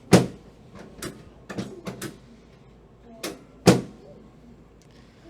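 Drop pieces of a chiropractic drop table clacking down twice under the adjuster's thrusts, each a sharp loud knock, with several lighter knocks and clicks between.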